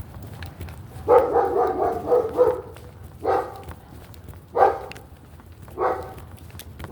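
A dog barking: one long, wavering bark about a second in, then short single barks about every second and a half.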